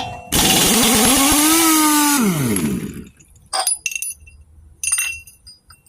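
Impact wrench on a 1/2-inch drive socket hammering for about two seconds to break loose the flywheel nut of a small Tecumseh generator engine, its motor whining down after the trigger is let go. A few light metallic clinks follow.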